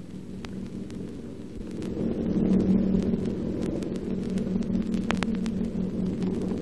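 Steady drone of a multi-engined propeller aircraft, swelling over the first two seconds or so and then holding, with scattered clicks of an old film soundtrack.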